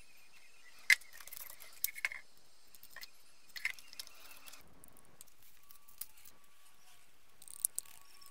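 Metal paint tins and a plastic mixing cup being handled on a workbench: a few sharp clinks and taps, the loudest about a second in, others around two seconds, three and a half seconds, and near the end.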